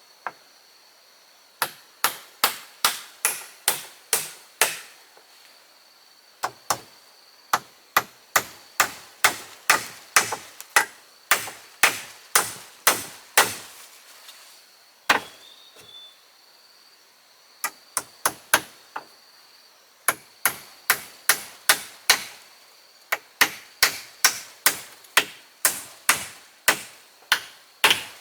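Repeated sharp blows struck into wood, about three a second, in runs of several seconds broken by short pauses.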